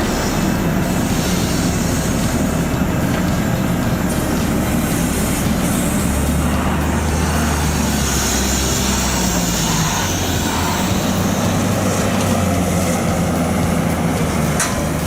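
Heavy diesel truck engine running steadily, with road and wind noise over it; the engine note shifts slightly partway through.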